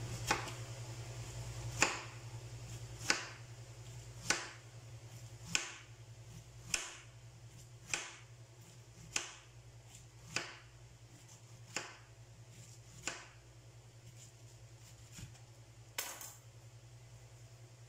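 Chef's knife slicing a peeled pineapple into rounds, each cut ending in a sharp knock on a wooden cutting board, about one cut every second and a bit, some thirteen in all.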